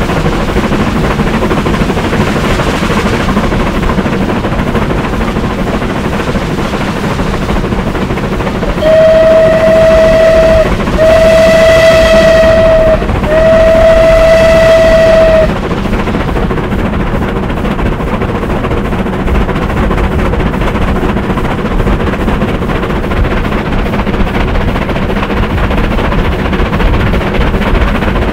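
Bulleid Battle of Britain Pacific steam locomotive 34053 Sir Keith Park, a three-cylinder 4-6-2, working under power with a steady loud running noise. About a third of the way in its steam whistle sounds three long blasts in quick succession, each about two seconds.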